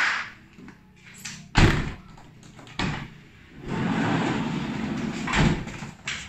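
A van's sliding side door being opened, with a loud thud about a second and a half in, then a stretch of scuffling and knocking as people climb out through the doorway.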